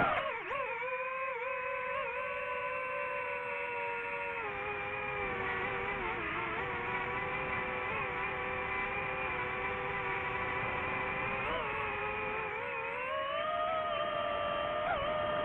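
DJI FPV drone's electric motors and propellers whining steadily, the pitch dipping briefly several times and rising about 13 seconds in as the throttle changes.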